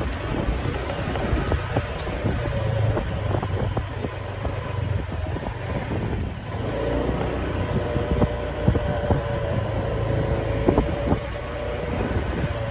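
Street traffic and engine noise heard from a moving bike, with wind buffeting the microphone as a low rumble. About halfway through, a steady engine whine comes in and holds.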